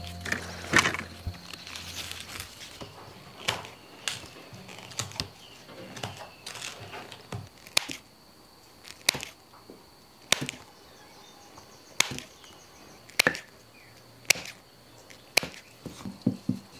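Scissors snipping through a dark, sticky sheet of candied fruit, one sharp click roughly every second.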